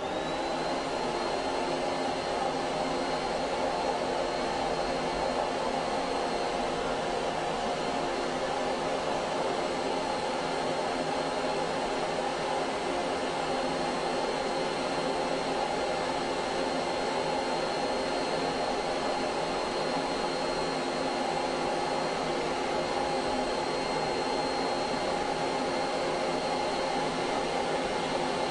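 Canister wet/dry vacuum cleaner switched on, its motor spinning up within a second and then running steadily, with a thin high whine over the rush of air.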